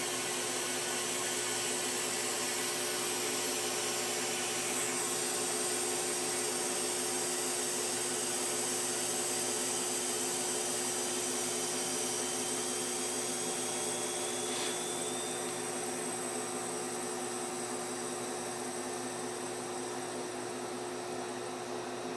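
Vacuum pump running to pull a vacuum on a desiccator for floral-dip infiltration of Camelina flowers: a steady rushing hiss with a hum, easing off slightly over the last several seconds.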